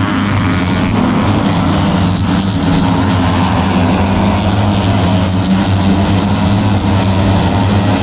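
A vehicle engine droning steadily at an even pitch, with a constant low hum.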